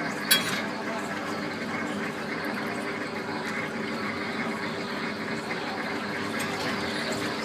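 Skylab ride car running along its elevated track: a steady hum with a few held tones, and one sharp click about a third of a second in.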